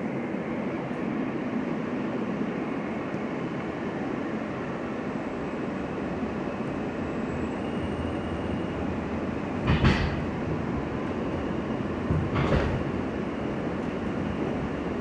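R160 subway car pulling out of a station, heard from inside the car: a steady rumble of wheels on the rails, with two heavy clunks from the wheels on the track about ten and twelve and a half seconds in.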